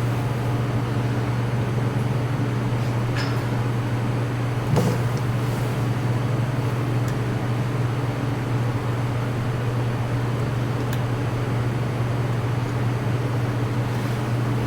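Steady low mechanical hum that runs unchanged throughout, with a few small clicks and knocks about three, five and eleven seconds in.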